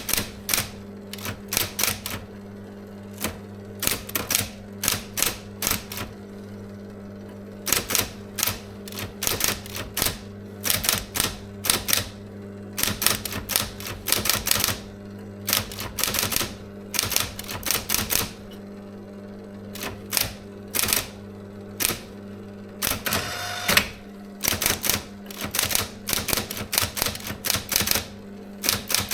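A SIGMA SM 7800 K electric typewriter being typed on: quick runs of sharp key strikes with short pauses between them, over a steady hum. About 23 seconds in there is one longer, drawn-out mechanical sound.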